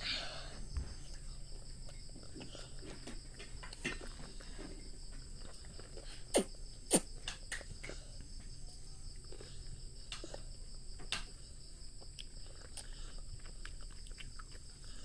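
Steady, high, finely pulsed insect trilling, like crickets, with scattered small clicks and wet taps of cucumber slices being handled in a bowl and eaten; two sharper clicks stand out about six and seven seconds in.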